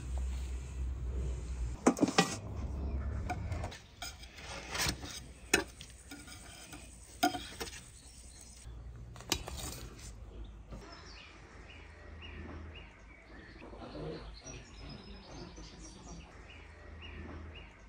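A knife cutting baked pastries, with sharp clicks and scrapes against a metal baking tray in the first half. From about halfway on, small birds chirp in a quick repeated series.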